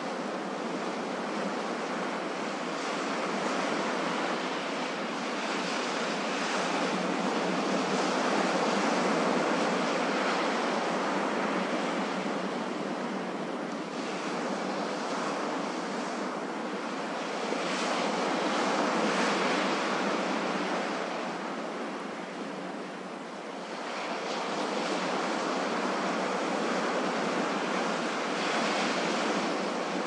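Ocean surf breaking and washing up a beach, a continuous rushing that swells and ebbs in long waves roughly every ten seconds.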